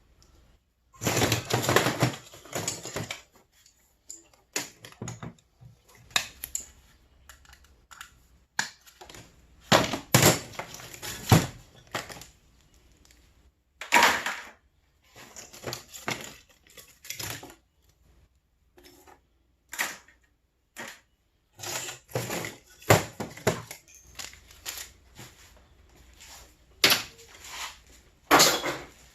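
Pieces of scrap metal being sorted by hand and tossed into containers: irregular clanks and clatters, some single hits and some short rattling runs, with quiet gaps between them.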